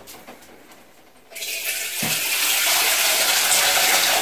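Water pouring steadily into a cooking pot, starting about a second in, with a light knock about two seconds in.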